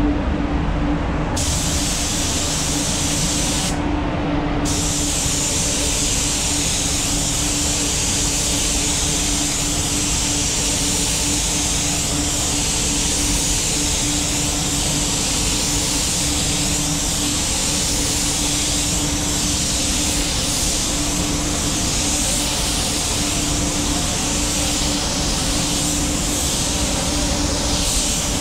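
Air-fed gravity-feed spray gun hissing steadily as it sprays paint onto a car hood, starting about a second in and pausing briefly at about four seconds. A steady low hum runs underneath.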